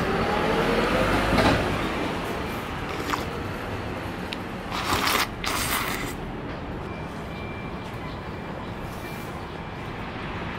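Street traffic noise, with a vehicle's rising whine over the first second and a half and two short hissing sounds about five seconds in.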